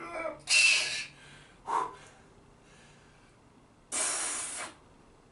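A man breathing hard under the strain of a long static barbell curl hold: two forceful breaths blown out, about half a second in and again about four seconds in, with short strained grunts near the start and just under two seconds in.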